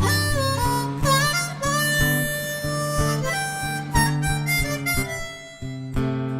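Music: a harmonica playing a melody with bent notes over a steady low accompaniment and a regular beat.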